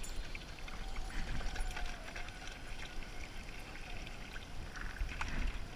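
Water pouring from a dog-park drinking fountain's spout into a bowl, with a steady low rumble underneath.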